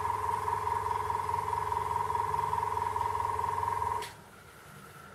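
Airbrush compressor running with a steady hum, switching off about four seconds in.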